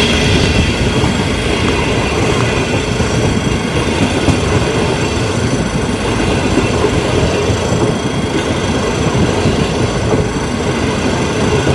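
Mitsubishi electric train running steadily as it pulls out of the station, a continuous sound of motors and wheels on the rails.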